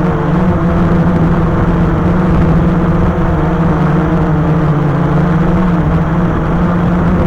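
Multirotor drone's electric motors and propellers running in flight, a steady loud hum with overtones that dips slightly in pitch about five seconds in as the throttle eases.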